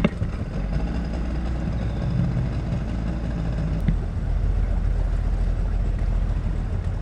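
Small fishing boat under way: its outboard motor running steadily under a broad rushing noise.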